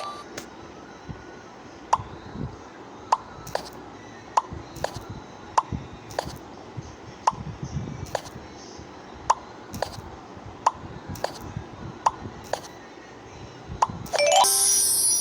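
A series of sharp little clicks and plops, roughly one a second, each with a short ringing ping. A bright chime begins near the end.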